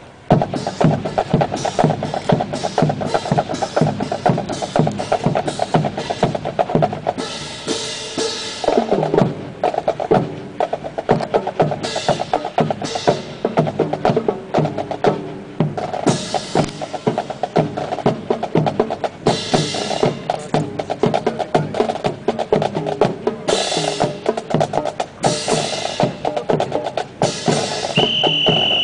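Military drill drum section of snare drums playing a fast, steady marching cadence, with several louder crashing accents every few seconds. A short high steady tone sounds near the end.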